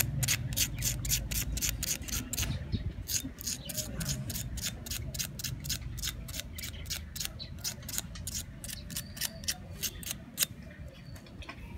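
A small pad scrubbed rapidly back and forth over the spindle-motor contact pins of a hard drive, about four or five scratchy strokes a second. It is cleaning the motor connector contacts so the board makes good contact and the drive can be detected.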